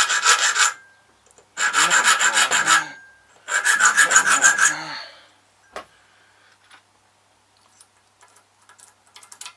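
Hand file cutting a key blank: three spells of quick back-and-forth rasping strokes in the first five seconds, deepening the cuts of a hand-made key. After that only faint clicks and taps.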